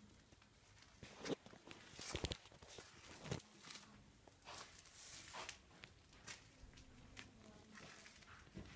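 Footsteps at an uneven pace, roughly one a second, the loudest in the first few seconds.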